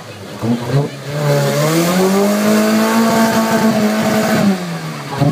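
Off-road buggy's engine revving hard as it ploughs through a deep mud hole: the revs climb over about a second, hold high for a couple of seconds, then drop back near the end.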